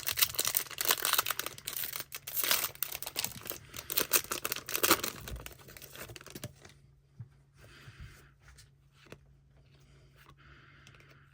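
A trading-card pack wrapper being torn open and crinkled by hand: dense crackling and tearing for about six and a half seconds, then only faint rustling.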